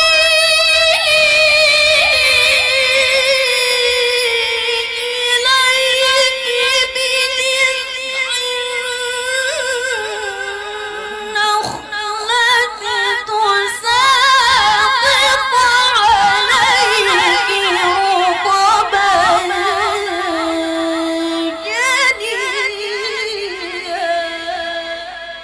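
A woman reciting the Qur'an in melodic tilawah style: long drawn-out, ornamented phrases with quick trills that drift gradually lower in pitch and trail off near the end.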